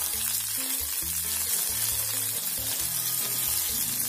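Watery tempering of oil, mustard seeds, green chillies and curry leaves sizzling and bubbling in a kadai on a fast flame, under background music with a low, stepping bass line.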